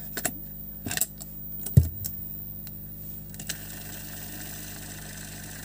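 Cassette tape being turned over and snapped into an old cassette deck mechanism: several light plastic clicks, then a louder clunk about two seconds in. From about three and a half seconds the deck runs side B and only a steady hiss comes through, with no music, over a constant low hum; the repairer cannot yet tell why the song is missing.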